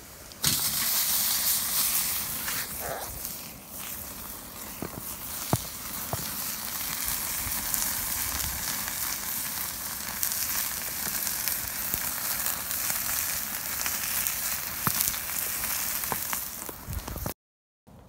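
Ribeye steak sizzling in a perforated grill pan over a wood fire, a steady hiss that starts suddenly about half a second in, with scattered pops and crackles. It cuts off abruptly near the end.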